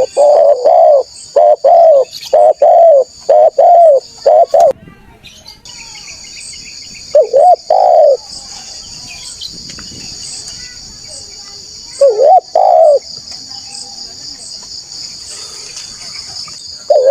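Spotted dove (tekukur) cooing: a quick rhythmic run of loud coos over the first few seconds, then two short coo phrases about seven and twelve seconds in. A steady high insect buzz runs underneath.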